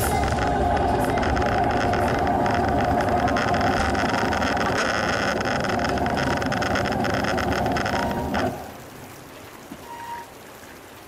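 Aprilia Pegaso 650 single-cylinder motorcycle engine running as the bike rides a gravel track, with tyre and wind noise. About eight and a half seconds in the engine sound cuts off suddenly as the bike stops.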